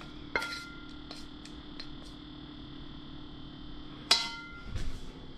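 Chopsticks tapping and clicking against a bowl while noodles and greens are arranged in it, with one sharper clink about four seconds in that rings briefly. A steady low hum runs underneath.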